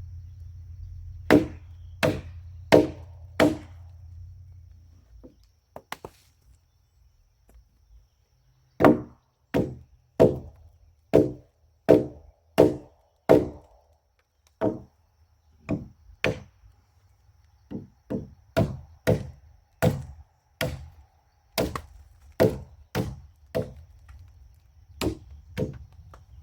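Chopping strikes into a log, evenly paced: four blows about a second in, a pause, then a long run of about twenty more blows with short breaks. A low steady hum underneath stops about five seconds in.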